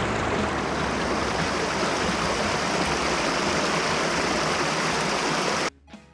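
Mountain stream rushing and splashing over rocks in small cascades, a steady rush of water that cuts off abruptly near the end.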